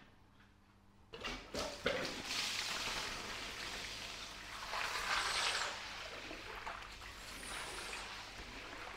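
A few short knocks, then a steady rush of water as a hose-fed rinse wand is run over a soaked rug, the water spraying through it and washing out across the tiled floor.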